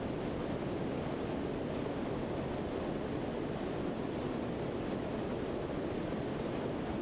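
Steady in-flight noise heard from aboard a Lockheed C-130 Hercules, its four turboprop engines and the rush of air blending into one even, deep rushing sound that does not change.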